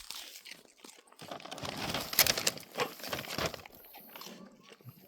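An animal crunching and chewing popcorn, in a dense run of crisp bites from about a second in, loudest around two seconds, tailing off into scattered clicks.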